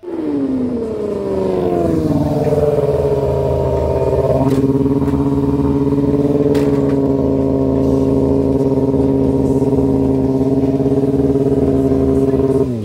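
Sportbike engine dropping in revs, then running at a steady speed for about ten seconds, with a slight change in its note about four seconds in. It cuts off abruptly near the end as the bike goes down on its side.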